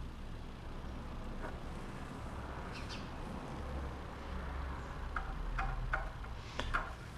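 Light clicks and taps from a carbon fiber splitter piece being handled, bunched in the last couple of seconds, over a steady low rumble.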